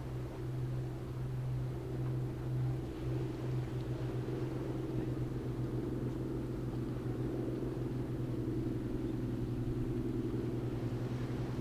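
Steady low engine drone: a deep continuous hum with a higher humming layer above it that grows a little stronger a few seconds in.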